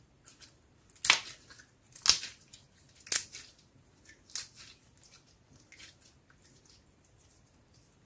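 Clear slime with star confetti and beads squeezed and pressed in the hands, giving sticky, crackly squishes: three loud ones about a second apart, then a couple of softer ones that fade to faint ticks.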